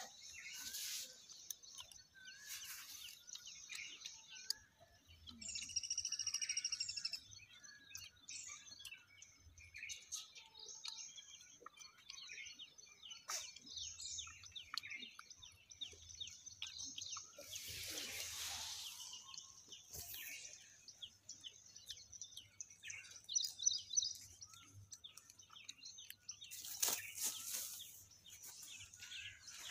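Birds chirping and calling over a steady high-pitched background drone, with one longer, louder call about five seconds in. Brief rustling bursts come about eighteen seconds in and near the end.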